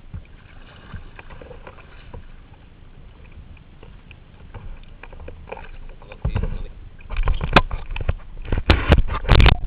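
Sea kayak on the water: paddle splashes and lapping water, with gusts of wind buffeting the microphone. Fairly quiet at first, then loud, irregular bursts in the second half.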